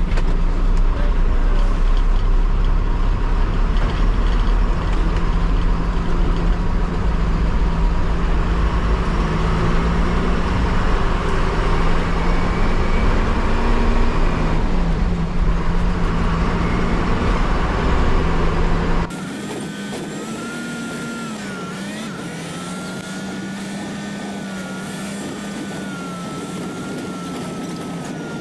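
A bus's diesel engine running under way, with heavy road rumble inside the driver's cab. About two-thirds of the way through, the sound cuts abruptly to a quieter, thinner engine whine that wavers up and down in pitch.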